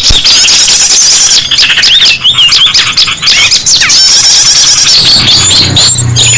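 Many small songbirds chirping and trilling at once, their rapid calls overlapping into a loud, busy chorus: a bird-lure (pikat) recording made to draw in small wild birds. A low hum joins in near the end.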